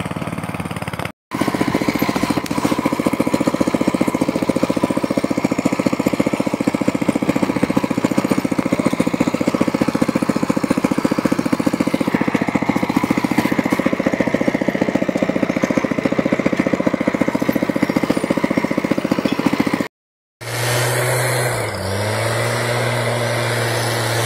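Walk-behind tractor's engine running steadily with a fast even pulse while it drags spiked rotary weeders. After a short break, a backpack motorized mist sprayer's two-stroke engine runs with a steadier tone, dipping in pitch about two seconds in and picking back up.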